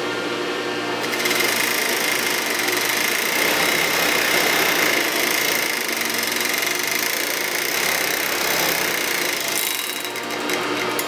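Industrial sewing machine running steadily at speed, stitching a long strip of denim into belt loops; it speeds up and gets louder about a second in.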